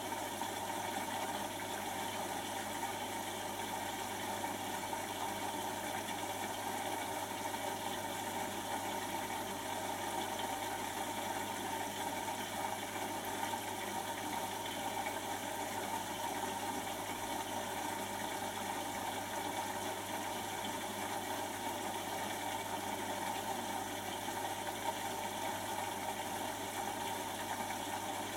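Beko WTB741R2A front-loading washing machine running mid-wash on its Daily Quick cycle with a full load: a steady, even mechanical hum with a low drone underneath.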